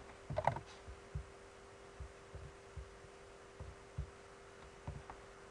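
Soft, irregular low thuds and a few clicks from mouse clicks and keystrokes on a desk, over a steady faint electrical hum.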